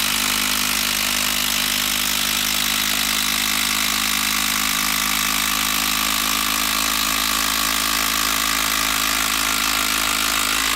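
Makita 12-volt brushed cordless impact driver hammering steadily without a pause under load while it drives a long TimberLok structural screw into wood.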